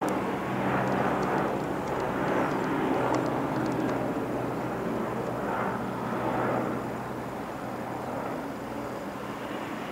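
Light single-rotor helicopter flying overhead: steady rotor and turbine noise over a low hum, with slow swells, growing fainter from about seven seconds in as it moves away.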